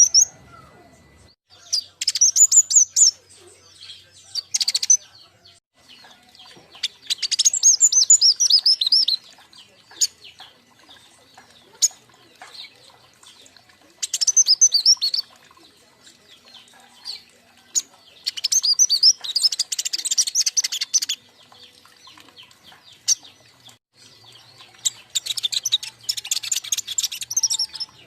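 A group of juvenile king konin birds chirping in rapid high trills, about eight bursts of one to three seconds each with short pauses between.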